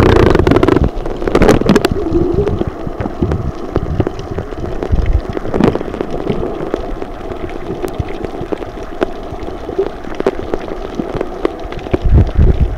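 Sea water splashing and sloshing right at the microphone as a swimmer strokes through it: a dense, continuous patter of small splashes, loudest at the start and again near the end.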